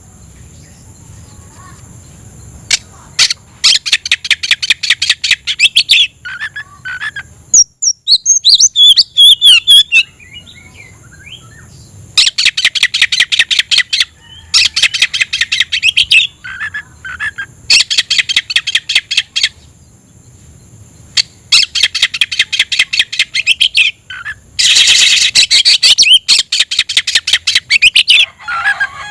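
Oriental magpie-robin (kacer) singing loudly in its fast, aggressive challenge song: phrase after phrase of rapid, clipped repeated notes, each run lasting about two seconds, with a run of varied gliding whistles about eight seconds in.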